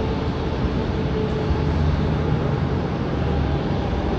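Jet airliner's engines running steadily at taxi idle: an even rumble and hiss with a faint steady tone.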